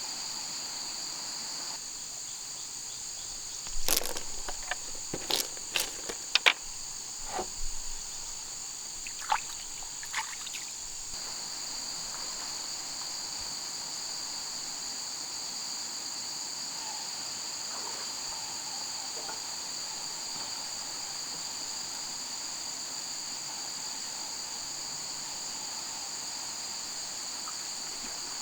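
Steady high-pitched insect chorus. Between about four and ten seconds in, a scattered series of about ten sharp knocks and clicks sounds over it.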